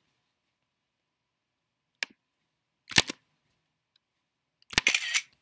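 Silence broken by a few sharp clicks: a faint one about two seconds in, a louder click or knock a second later, and a short clattering rustle near the end.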